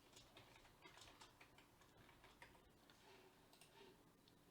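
Faint computer keyboard typing: a few scattered, irregular key clicks over near-silent room tone.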